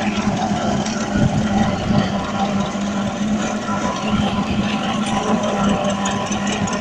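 Vintage Saunderson tractor's engine running steadily while ploughing, with an even, unbroken drone.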